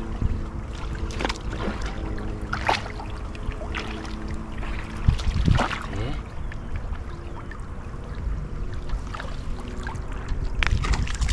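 Water splashing and sloshing as a gill net is hauled up by hand in shallow pond water, with a few sharper splashes, the strongest about three and five and a half seconds in. A faint steady hum runs underneath.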